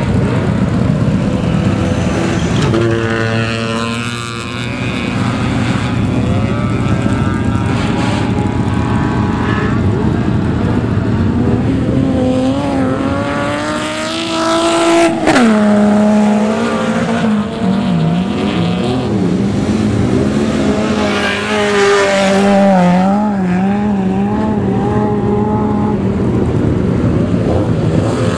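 Autocross race cars running flat out on a dirt track, engines revving up and down as they pass through the bend. About fifteen seconds in, one engine's pitch falls sharply.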